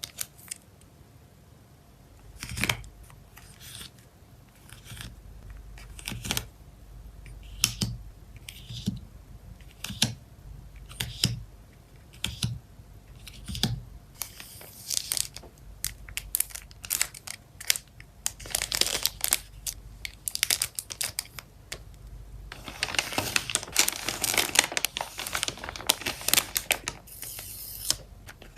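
Photocard packing materials being handled up close: plastic sleeves and wrapping crinkling and rustling, with scattered sharp taps and clicks. The crinkling grows dense and continuous in the second half.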